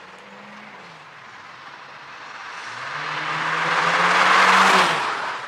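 Honda Civic Sport hatchback with its muffler deleted doing a fly-by under acceleration. The exhaust note climbs in pitch and grows loud, peaking after about four seconds, then drops away suddenly as the car passes.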